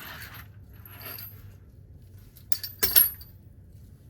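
Metal hand tools and sockets clinking and rattling while a socket size is tried on a bolt, with a few sharp clicks and one loud metallic clink about three seconds in.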